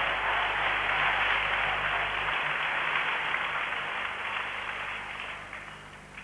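Arena crowd applauding between points of a table tennis match, the clapping dying away over the last couple of seconds, with a single sharp tap at the very end.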